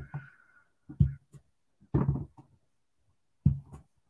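Clear acrylic stamp block tapped down onto an ink pad to ink the stamp: a few dull knocks about a second apart, the first the loudest.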